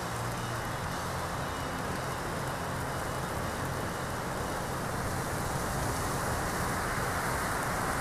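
Steady rushing of wind and falling snow in a spruce forest, growing slightly louder toward the end.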